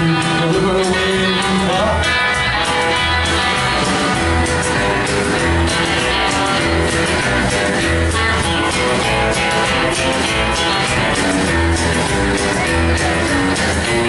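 Live rockabilly band playing: hollow-body electric guitar, upright double bass and drums at a steady beat.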